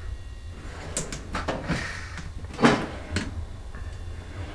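Metal drawers of a Craftsman tool chest being shut and pulled open, giving a handful of sliding clunks and knocks with the tools inside rattling; the loudest clunk comes about two and a half seconds in.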